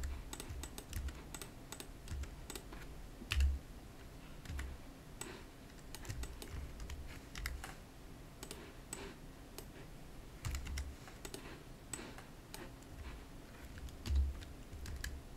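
Computer keyboard keys and mouse buttons clicking irregularly as modelling shortcuts are entered, with a few dull low knocks, the loudest about three and a half seconds in and another near the end.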